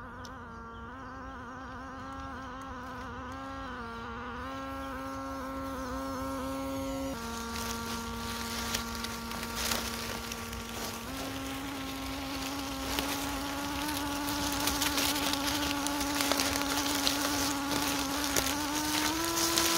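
WPL C-14 RC truck's electric motor and drivetrain whining, the pitch stepping up and down with the throttle. From about seven seconds in, a crackle of dry leaves under the tyres joins it and grows louder as the truck comes close.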